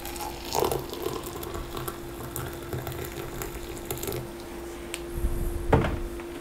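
Hot water poured from a kettle into a glass mug of loose dried tea leaves: a steady pour filling the glass. There is a single sharp knock near the end.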